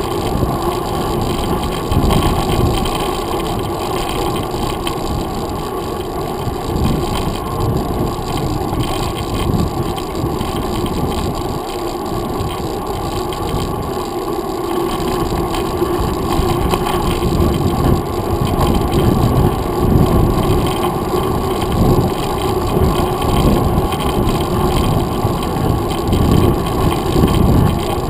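Mountain bike riding on a paved trail, heard through a handlebar-mounted GoPro Hero 2: a continuous muffled rumble of wind buffeting and tyre and bike vibration, growing louder in the second half.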